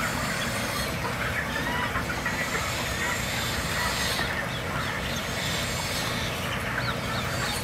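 Farmyard ambience: hens clucking and small birds chirping over a steady background hiss that starts and stops abruptly.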